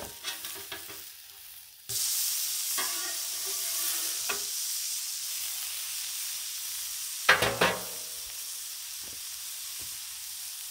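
Chicken sizzling on a hot Blackstone steel griddle, the sizzle starting suddenly about two seconds in as the meat goes down on the steel and then holding steady. Metal spatula clanks and scrapes against the griddle top at the start, a few clinks, and a louder clatter of metal about seven seconds in.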